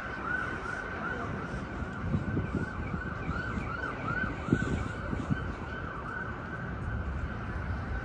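Emergency vehicle siren in a fast yelp, its pitch rising and falling about three times a second and fading away near the end.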